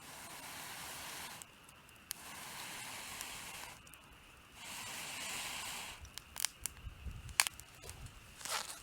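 Steady cooking hiss in three stretches that start and stop abruptly, then a run of sharp crackles and clicks with a few low knocks in the last few seconds.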